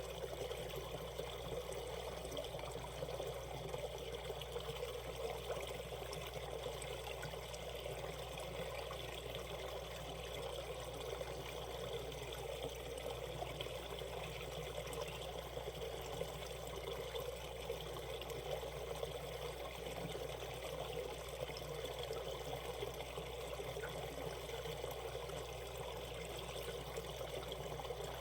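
Valley stream flowing over shallow rapids: a steady, even sound of running water.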